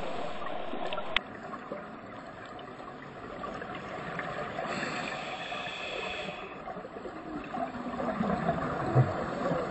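Scuba breathing heard underwater: regulator hiss and the gurgling rush of exhaled air bubbles, with a single sharp click about a second in.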